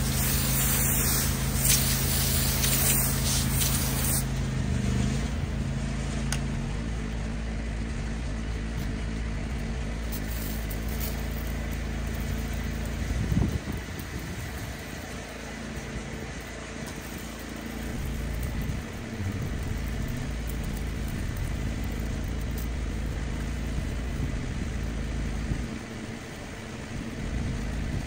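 Pressure washer running: a steady engine hum under the hiss of a high-pressure water jet spraying mossy brick steps.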